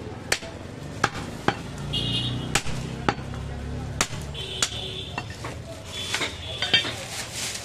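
Heavy butcher's knife chopping goat meat on a wooden log block. About ten sharp chops come at an uneven pace.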